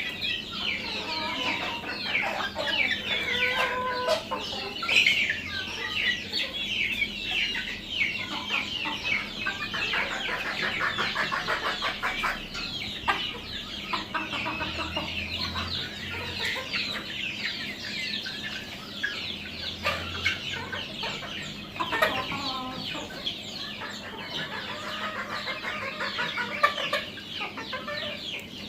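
A flock of deshi (Bangladeshi native) chickens clucking and calling, many short high calls overlapping without a break.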